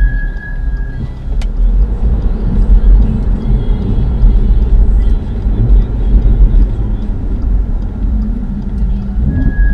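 Audi RS3 rolling, with low road and running rumble. A thin, steady high-pitched brake squeal dies away about a second in and starts again near the end; the squeal appeared after the brakes were changed. A single sharp click sounds a little after the first second.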